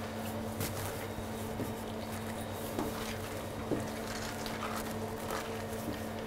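Blanched cabbage leaves being folded by hand around a minced-meat filling on a stainless steel counter: soft rustling and squishing with a few light taps, over a steady low hum of kitchen equipment.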